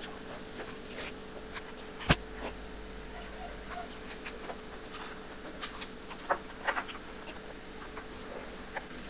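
Eating sounds at a table: spoon clicks against a small bowl and mouth sounds, the sharpest click about two seconds in. Underneath runs a steady high-pitched drone of insects.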